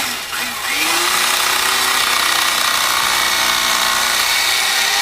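Handheld electric knife cutting through car seat foam, its small motor running steadily. The motor stops briefly just after the start and runs up again under a second in.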